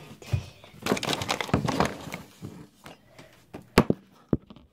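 Rustling and bumping from a hand-held phone being moved around, with two sharp knocks about half a second apart near the end.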